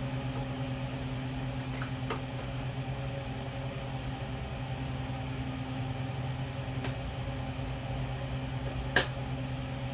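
A steady mechanical hum, like a fan running, with a few light metallic clicks from pliers working the master link clip of a dirt bike's drive chain, and one sharper click near the end.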